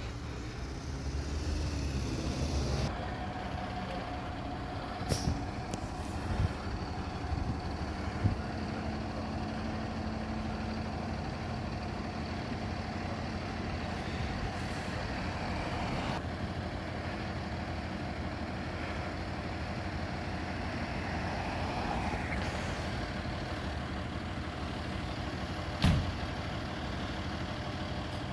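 Fire truck's diesel engine running steadily, with a few short sharp sounds over it, the loudest near the end.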